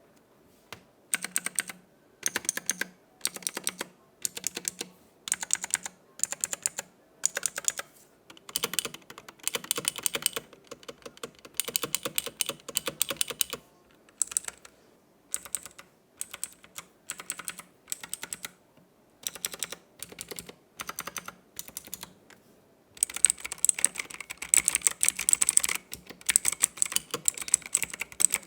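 Gamen Titan Elite mechanical keyboard with Otemu blue clicky switches being typed on: quick runs of sharp key clicks separated by short pauses, turning into continuous fast typing for the last several seconds.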